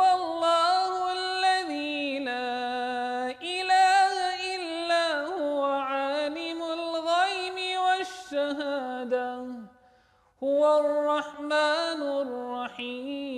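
A male qari reciting the Quran in a melodic style, unaccompanied: one high voice holding long, ornamented notes. He breaks off briefly for breath about ten seconds in.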